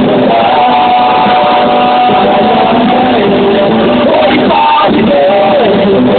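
Live rock band playing loudly, with a guitar line of held notes that bend in pitch over the full band.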